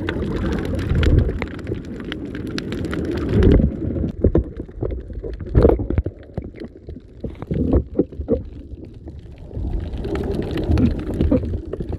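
Muffled underwater rumble and gurgling picked up by an underwater camera as it is moved through the water, with scattered knocks and thumps. A fine crackle over the first few seconds stops about three and a half seconds in.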